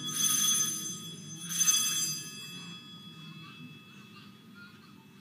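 Altar bells (sanctus bells) shaken twice, at the start and about a second and a half in, each shake leaving a bright shimmering ring that fades out by about three seconds. They are rung for the elevation of the chalice just after the consecration at Mass.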